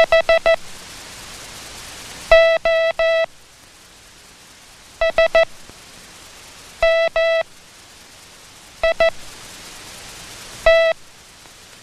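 Morse code keyed by an operator as a buzzy steady tone, sent as single letters made only of dits or only of dahs. Each letter is a separate group with a pause after it: first four quick dits, then three long dahs, then more groups of short or long beeps, ending on a single short dit.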